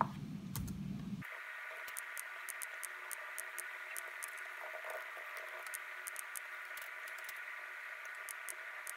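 Faint, steady static hiss with a few thin steady tones in it and many tiny sharp ticks scattered irregularly. About a second in, a low rumble under it drops out suddenly.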